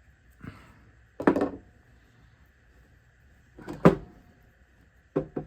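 A few short knocks and clatters from the parts of a Craftsman 3/8 in. ratchet being handled and fitted back together, the two loudest a little over a second in and near four seconds in.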